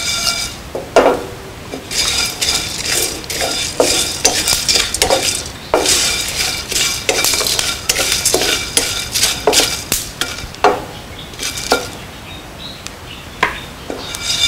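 A spatula stirring and scraping whole spices around a small wok as they dry-roast, with irregular scrapes and the clicking rattle of seeds and bark against the pan.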